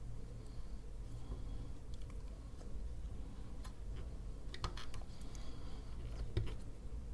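Light clicks and taps of small plastic parts being handled: a fan's cable and connector being worked into a drive enclosure. The clicks are scattered, with a quick cluster a little past halfway and another near the end.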